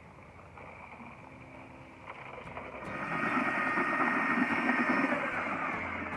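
Background music fading in, louder from about two seconds in and easing off slightly near the end.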